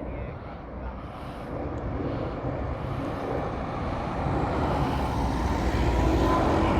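Aircraft engine rumble growing steadily louder as an airplane approaches overhead, with a faint steady whine coming in near the end.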